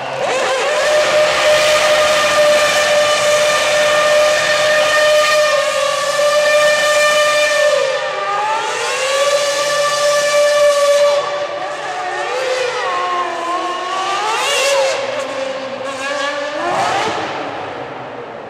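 McLaren MP4-23 Formula One car's Mercedes 2.4-litre V8 held at high revs while the rear wheels spin in a smoking burnout. The pitch stays steady for several seconds, drops about eight seconds in, then rises and falls with the throttle before a sharp rev near the end.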